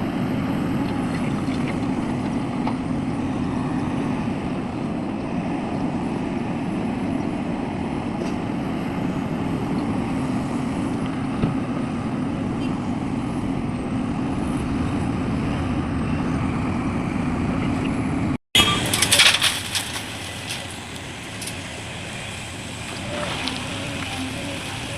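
Heavy diesel machinery running steadily with a low rumble, cut off abruptly about three-quarters of the way through. A quieter stretch with scattered crackles and clicks follows.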